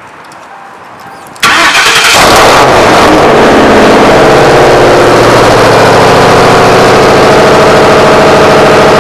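Cold start of a Ford Panther-platform 4.6-litre V8 with a muffler delete, stock resonator and 2.5-inch H-pipe exhaust. The engine fires about a second and a half in with a sudden loud surge, then settles into a steady, loud fast idle.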